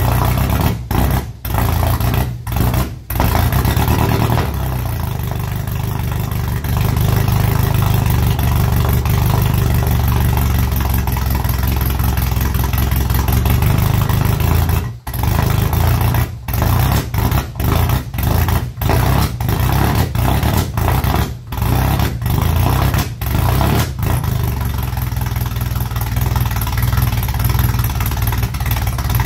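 1968 Datsun Roadster's four-cylinder engine running cold through a straight-pipe exhaust with no muffler. The exhaust note is heavier for about ten seconds from a few seconds in, then eases back, with several brief dips in the sound.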